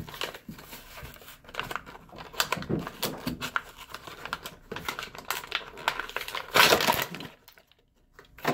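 Plastic being handled off-camera: crinkling with many small clicks, and a louder burst of crinkling about two thirds of the way through.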